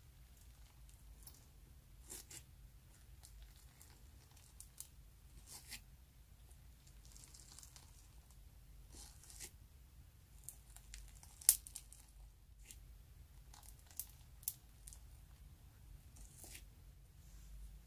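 Thick yellow sequin (spangle) slime being pried out of a small glass jar with a metal spoon: quiet, scattered crackling and tearing as the slime pulls apart, with a few sharp clicks, the loudest a little past the middle.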